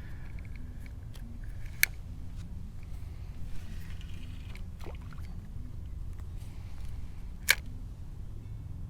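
Two sharp clicks about six seconds apart over a steady low rumble.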